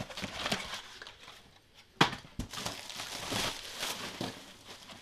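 Cardboard shipping box being opened by hand: its flaps are pulled back and rustle and scrape, with one sharp knock about two seconds in.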